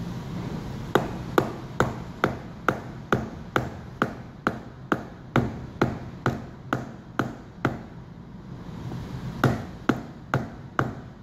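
Hand hammer striking, a steady run of about sixteen blows at roughly two a second, each with a short ring, then a pause of under two seconds and four more blows.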